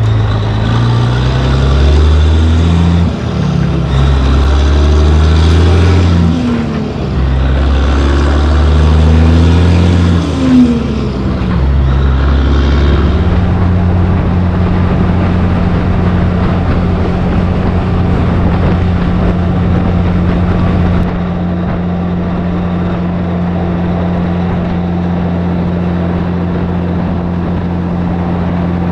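Heavy diesel engine of a Peterbilt 362 cabover semi pulling through the gears. The engine speed rises and drops back at each shift, roughly every three to four seconds, four times, then settles into a steady drone at cruising speed about halfway through.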